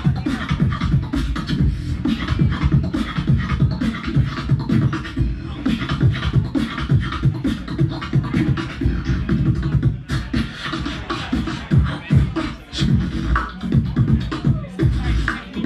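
Human beatboxing into a handheld microphone through a PA: a fast, continuous run of drum-like strokes, deep bass thumps and sharp clicks, dipping briefly about ten seconds in.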